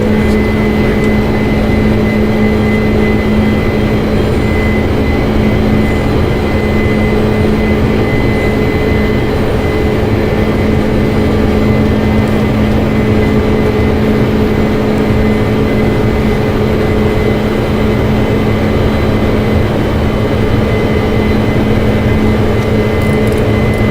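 Steady, loud flight-deck noise of a Boeing 747-400 climbing after take-off: a dense rush of airflow and engine rumble, with a few steady hums under it.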